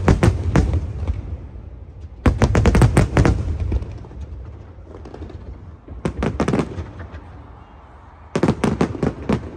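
Fireworks display: four volleys of rapid, sharp bangs and crackles, at the start, about two and a half seconds in, about six seconds in and near the end, with a low rumble between them.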